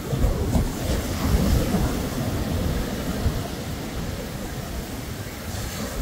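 Ocean waves washing onto a beach, with wind rumbling on the microphone.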